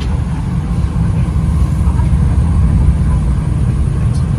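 Passenger train running along the track, heard from inside the carriage as a steady low rumble.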